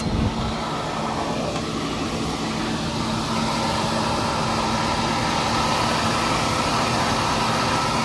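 Variable frequency drive in a pump control panel running, its cooling fan giving a steady whir over a steady low hum.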